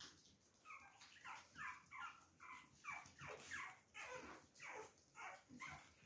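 Puppy whimpering in a quick run of short, high, falling whines, about two or three a second, faint.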